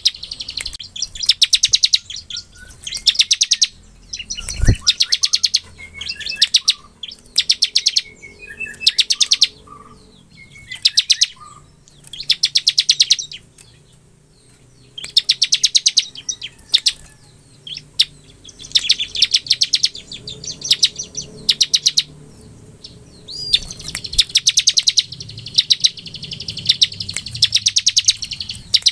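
A prinia (ciblek) gives its fast, dry rattling trill (the 'ngebren' song), high-pitched and repeated in bursts of about a second with short pauses between. There is a single low thump about five seconds in.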